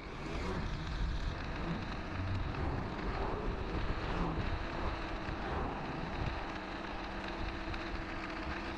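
Steady wind rushing over the microphone of a camera on a moving e-bike, a low rumbling noise with no clear events.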